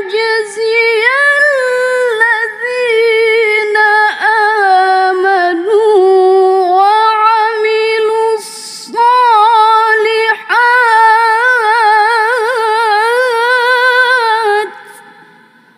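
A woman's solo melodic Quran recitation (tilawah) into a microphone: long held notes with ornate pitch turns. She breaks off a little past halfway for a quick breath, sings a second phrase, and stops shortly before the end, the voice fading away with an echo.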